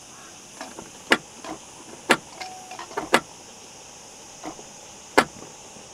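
A handful of sharp knocks and clacks at irregular intervals, four louder than the rest, with a short squeak about two and a half seconds in.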